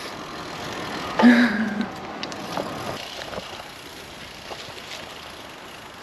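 Steady noise of cycling along a forest path: wind on the microphone and tyres rolling, with a brief short vocal sound about a second in.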